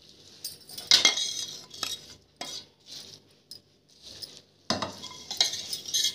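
Metal spoon stirring spiced masala through boiled green peas in a ceramic bowl, making irregular scrapes and clinks against the bowl. Louder scraping near the end as the leftover oily masala is scraped out of a metal pan into the bowl.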